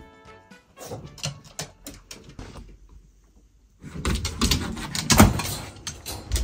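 Shiba Inus scrabbling and jumping against a door, paws and claws knocking and rattling it in excitement at someone arriving home. The loud scrabbling starts suddenly about four seconds in, after a few soft knocks and a short quiet gap.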